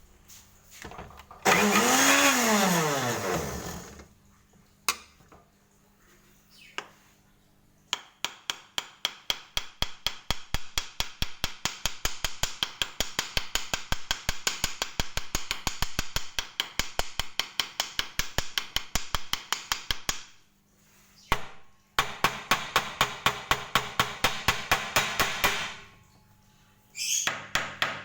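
Construction tool sound effects: a small power tool's motor whirs for about two seconds, its pitch rising and then falling, followed by a couple of single clicks. Then come long runs of rapid, evenly spaced knocking, about five strikes a second, in three stretches with short gaps between.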